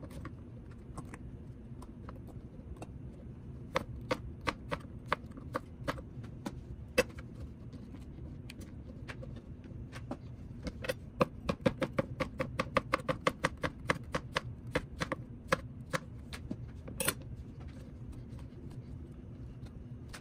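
Knife chopping on a cutting board: irregular sharp taps, then a quicker run of chops about halfway through, over a low steady hum.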